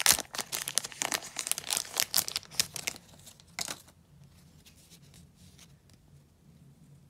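An O-Pee-Chee hockey card pack wrapper being torn open, crinkling and crackling densely for about three seconds. One last crinkle follows shortly after.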